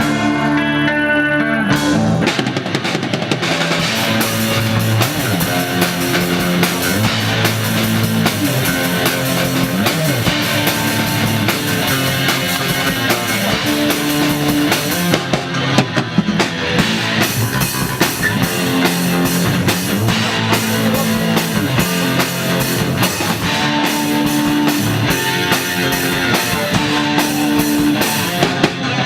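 Instrumental rock music: guitar playing, with a drum kit coming in about two seconds in and the full band carrying on.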